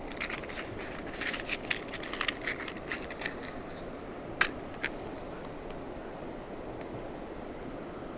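Crackling and scratching of a match being handled and struck on a matchbox, ending in one sharp strike about four and a half seconds in and a smaller click just after.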